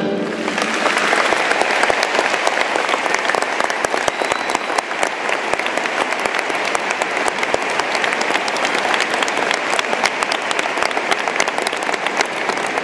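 Audience applauding in a concert hall with dense, steady clapping, which starts as the orchestra's final chord ends.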